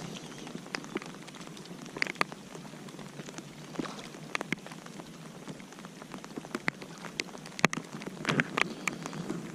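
Rain falling steadily as an even hiss, with irregular sharp taps of single drops striking close by.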